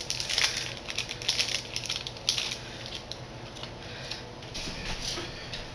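Plastic sticker packaging rustling and crinkling as it is handled and opened, with small taps and clicks against a cutting mat. The handling is busiest in the first two seconds or so, then thins to sparse light ticks.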